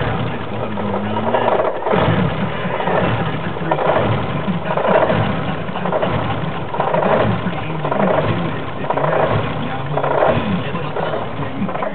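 BMW E30's straight-six engine idling roughly. The running swells and falls about once a second and the pitch wavers unevenly: a rough, uneven idle.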